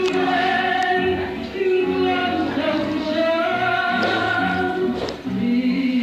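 Singing in long held, sliding notes, a woman's voice high over lower voices, with berimbaus (gourd-resonated musical bows) played alongside.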